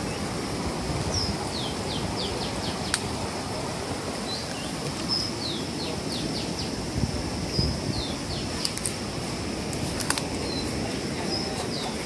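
Small birds give short, high, falling chirps, scattered every second or so, over a steady rustle of someone moving through mangrove roots and mud. A faint, thin, steady high whine runs underneath.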